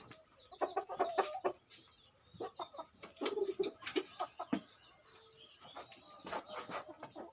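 Chickens clucking in short, scattered calls, with a few brief held notes.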